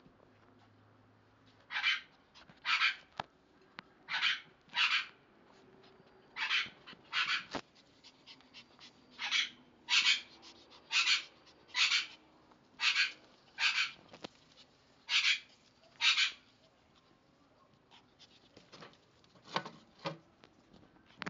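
Pomeranian barking: about fourteen short, high-pitched yaps, mostly in quick pairs, for the first three-quarters. Near the end come two lower, deeper barks.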